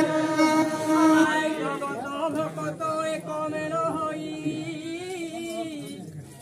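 Voices singing a Sambalpuri Krustaguru devotional chant over a microphone. A long held note opens it, then a wavering, bending melodic line follows that slowly grows quieter.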